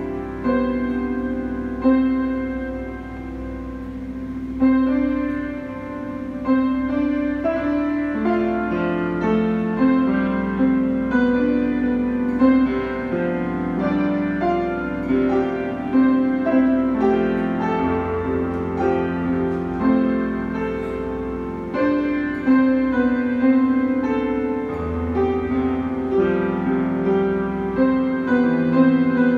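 A grand piano being played: a continuous flow of overlapping, sustained notes, a melody over lower accompanying notes, with no breaks.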